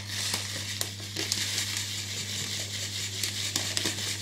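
Brown sugar pouring from its bag into a glass mixing bowl: a steady hiss of falling granules, dotted with small crackles.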